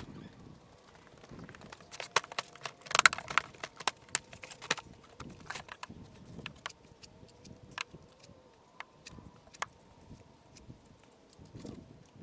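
Irregular sharp clinks and knocks of stonework, with stones and tools striking one another, thickest about two to five seconds in.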